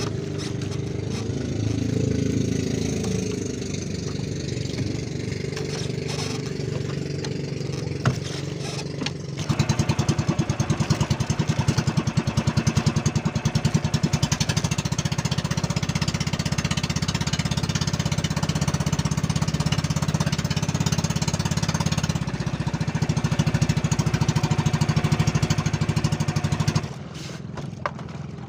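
Outrigger fishing boat's engine running. It picks up into a louder, fast even pulsing about a third of the way in and drops back shortly before the end.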